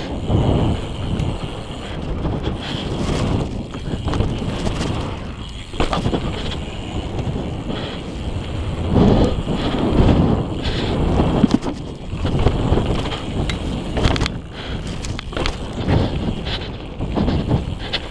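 Wind rushing over a rider-mounted camera's microphone while riding a BMX bike on packed dirt, with the tyres rolling and crunching over the dirt track. The noise rises and falls in surges, with a few sharp clicks.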